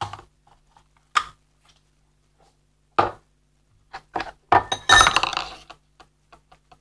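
Knocks and clinks of dishes and objects being picked up and set down on a table close to the microphone: single sharp knocks a second or two apart, then a dense burst of clattering about four to five seconds in.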